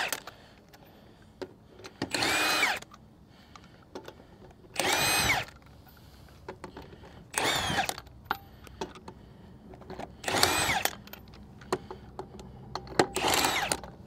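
Handheld power tool spinning lug nuts off a pickup truck's wheel: five short bursts about every three seconds, each rising then falling in pitch. Light clicks of loosened nuts being handled come between the bursts.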